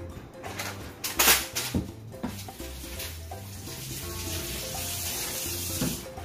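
Background music, over a cockatoo's beak knocking against its stainless-steel food cup: one sharp clink about a second in and a few smaller knocks after. A steady hissing rustle follows for the last few seconds.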